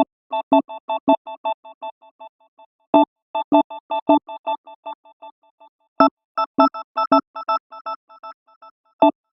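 iPhone ringtone: a synth-bell phrase of short pitched notes, a strong first stroke followed by a quick run of notes that fade away, repeating every three seconds.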